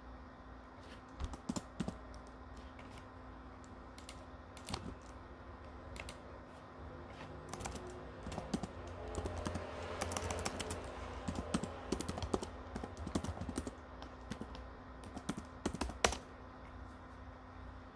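Computer keyboard keys tapped in irregular runs of clicks, busiest through the middle, with one sharper, louder click near the end, over a faint steady hum.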